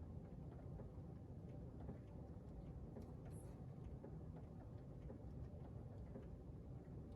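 Pouring rain: a faint, steady rush with scattered light ticks of drops at irregular intervals.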